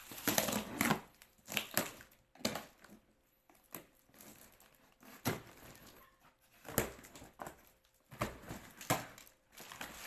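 Packaging being handled and torn open: irregular crinkling, crushing and tearing, with scattered knocks.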